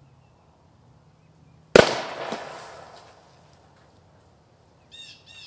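A PVC vacuum cannon fires with one sharp, loud bang about two seconds in, its tail fading over about a second. The bang comes as the rear aluminium-foil burst disc is knocked through with a rubber mallet and air rushes into the evacuated pipe, throwing the 3-inch PVC end cap out of the other end.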